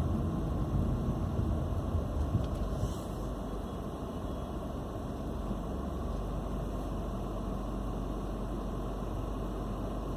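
Car noise heard from inside a car: a low engine and road rumble, louder for about the first three seconds as another vehicle goes past, then settling to a steady hum.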